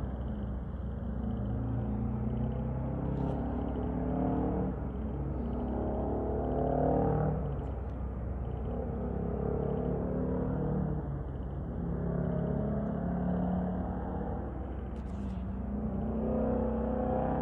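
Detroit Diesel 8V92 two-stroke V8 in a cab-over Kenworth truck pulling away under load. The engine note climbs in pitch and then drops back at each upshift, several times over.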